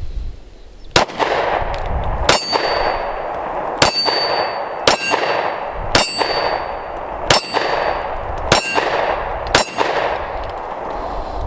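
Smith & Wesson Shield Gen 1 pistol firing eight shots about a second apart, each with a short echoing tail and most followed by a high metallic ring. It is a full magazine of Speer Gold Dot defensive rounds cycling through without a malfunction.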